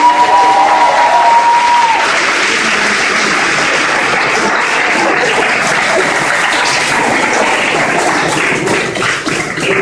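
A crowd clapping steadily and densely in a large hall. A single long, high cry rides over the applause for about the first two seconds.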